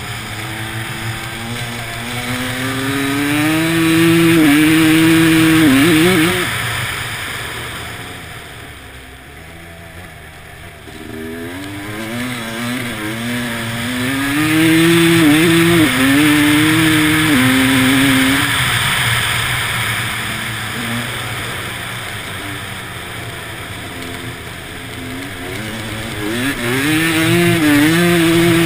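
Vehicle engine accelerating hard on an ice track, its pitch climbing with the revs and dropping back at each gear change. The driver eases off twice, the engine falling quieter, before pulling hard again.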